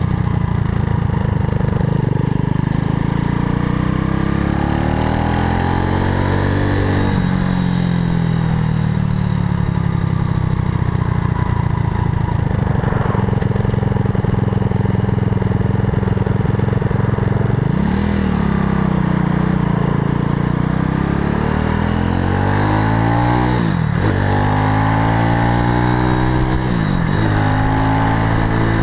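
Super Cub–style motorcycle with a Zongshen 190 cc single-cylinder four-stroke engine running while riding. Several times its pitch climbs and then drops sharply as gears are changed.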